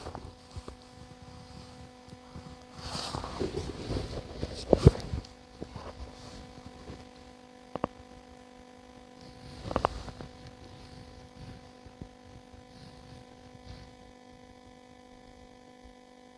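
Steady electrical hum with a few even overtones. Brief rustling around three to five seconds in, and a few sharp clicks.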